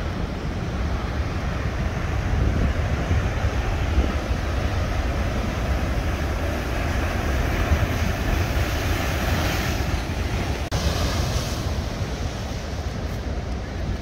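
Atlantic surf breaking and washing over rocks, a steady roar of foam with wind buffeting the microphone as a low rumble underneath. The hiss of the surf swells louder for a few seconds past the middle.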